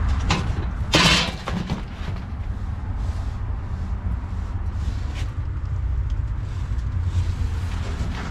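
A car engine running with a steady low rumble, with a short loud rushing noise about a second in.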